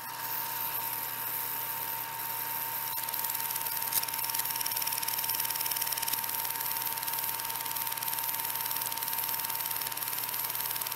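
Film projector running for home movies: a steady mechanical whirr and hiss with a constant high hum, and a single click about four seconds in.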